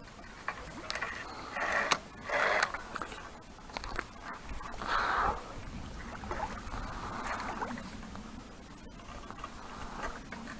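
A hooked carp thrashing and splashing at the water's surface as it is played toward the landing net, with three louder splashes in the first half followed by softer sloshing.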